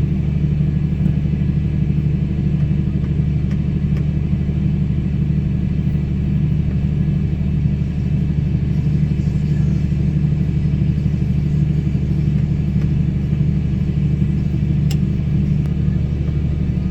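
Fendt 1038 tractor engine running steadily at a constant speed: an even, low drone with no revving.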